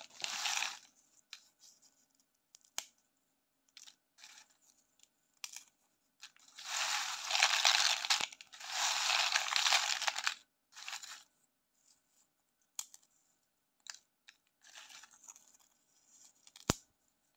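Dry square puffed crisps rustling and clattering in a bowl as hands stir, lift and drop them. The longest, loudest stretches come about six to ten seconds in, then shorter handfuls, and a single sharp crack near the end.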